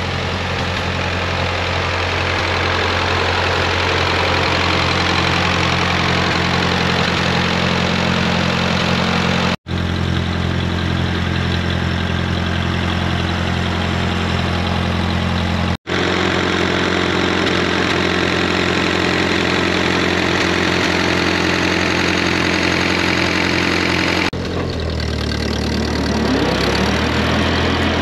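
A 1948 Ford 8N tractor's four-cylinder flathead engine runs steadily under a PTO-driven finish mower while mowing, with a broad rushing noise over the engine note. The sound cuts out for an instant twice, and the engine note changes near the end.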